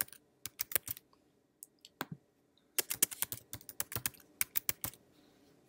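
Typing on a computer keyboard as a password is entered and then typed again to confirm it. A quick run of keystrokes, a few scattered taps, then a longer fast run that stops about five seconds in.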